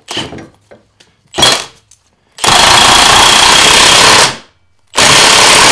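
Milwaukee cordless impact wrench hammering a nut tight on an NP231 transfer case. A short blip comes about a second and a half in, then two long bursts of hammering of about two seconds each, with a half-second pause between.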